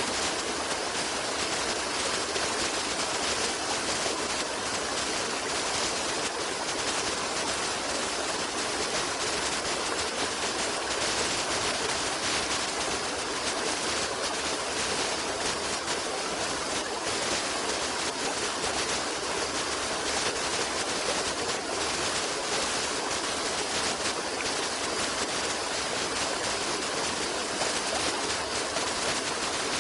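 Running water rushing steadily, with no breaks or changes in level.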